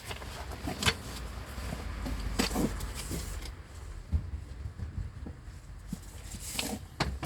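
A few scattered light clicks and knocks of metal engine parts being handled and set in place, over a low steady hum.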